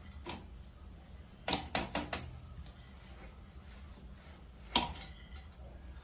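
Light sharp clicks and knocks of a steel strainer holding washed greens being handled in the steel pot it drains into: a quick run of about five clicks a second and a half in, and one louder knock near the end, over a low steady hum.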